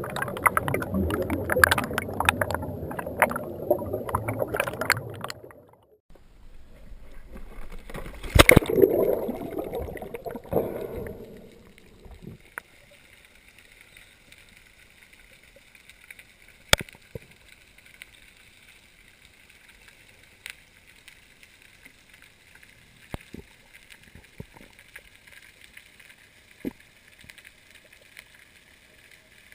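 Water splashing and bubbling around a spearfisher's diving camera for the first few seconds, with one sharp loud click in the middle. This gives way to the quiet, steady hush of being underwater, broken by scattered sharp clicks.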